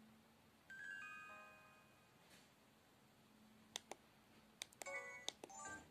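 Samsung SGH-E250 mobile phone: a short electronic chime of several tones about a second in, fading out over about a second. Near the end come sharp keypad clicks and a quick run of short key beeps.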